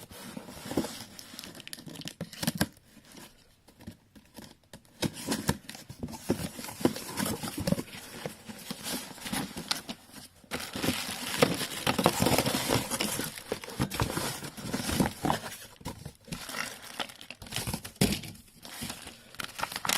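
Cardboard box being opened and its packing handled: irregular crinkling, rustling and tearing of paper and plastic, busier and louder in the second half.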